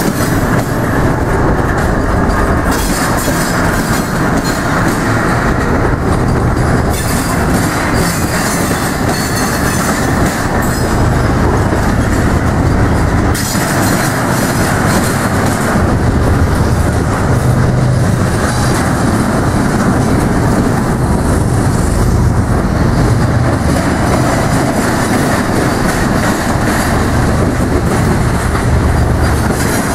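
Norfolk Southern double-stack container train rolling slowly past: a steady loud rumble of wheels on rails, with wheels clattering over the rail joints and diamond crossing.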